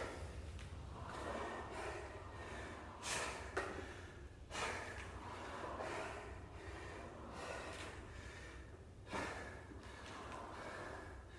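A man breathing hard as he recovers from a hard interval on a rowing machine, with several sharp, gasping breaths about three, four and a half, and nine seconds in.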